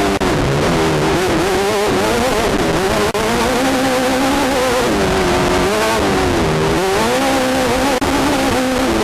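Class 10 desert race car's engine running hard, its pitch rising and falling again and again as the throttle is worked, under a loud steady rush of wind and rattle heard from inside the car. The sound dips out briefly three times.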